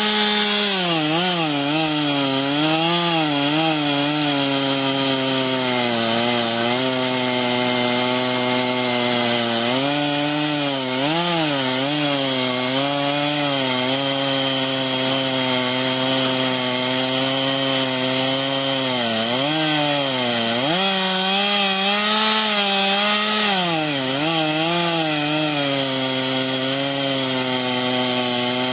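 Two-stroke chainsaw running at high revs while cutting through wood. The engine pitch sags and recovers several times as the saw bogs under load in the cut.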